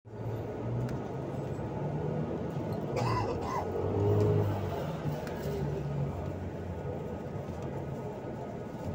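Steady low rumble of a moving road vehicle heard from inside as it drives along a street, with a brief higher-pitched sound with a wavering pitch about three seconds in.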